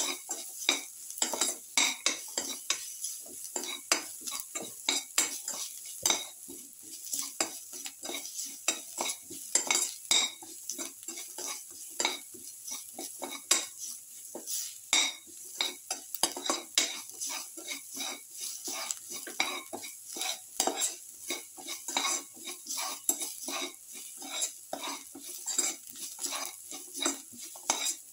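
Spatula stirring in a metal kadai, scraping and clacking against the pan several times a second in quick, irregular strokes, over a light sizzle of garlic cloves and sliced onions frying in oil.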